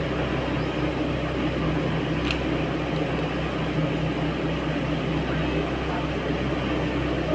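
Steady mechanical hum and whir with a constant low drone, like a machine running continuously, and a brief faint high tick about two seconds in.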